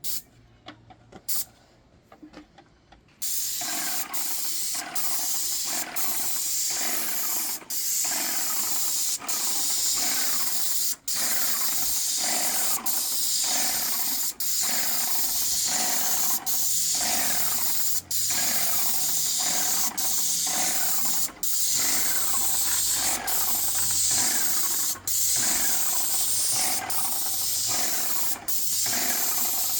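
Graco Magnum X5 airless paint sprayer spraying paint: a loud steady hiss that starts about three seconds in, broken by very short gaps every second or two.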